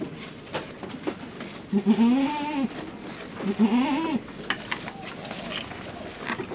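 Goat bleating twice, two wavering, arching calls of about a second each, a little under two and three and a half seconds in, over faint scattered clicks.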